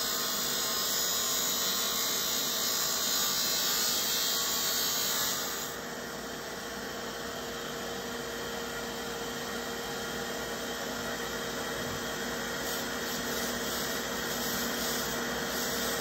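Shaft cutter's abrasive cut-off wheel cutting through a steel golf shaft, a loud hissing grind for about the first five seconds, over the steady whine of the cutter motor and a dust extractor. After that the machine runs on unloaded, with a few brief grinding touches near the end.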